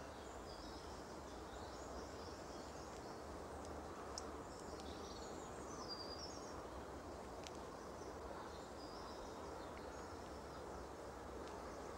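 Quiet outdoor ambience: a steady low hiss of background noise, with small birds chirping faintly on and off.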